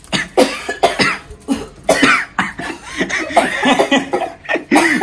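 A woman coughing over and over in short, harsh fits, set off by the pungent smoke of dried red chillies being charred in a gas-stove flame.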